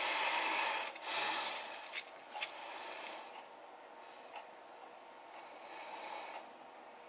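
Hissing, breath-like rushes of noise, two loud ones in the first two seconds and softer ones later, with a few faint clicks of steel tweezers plucking beard hairs.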